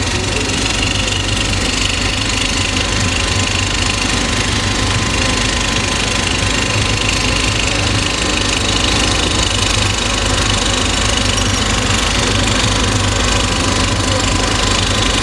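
A vehicle engine running steadily, a constant low rumble with no change in speed.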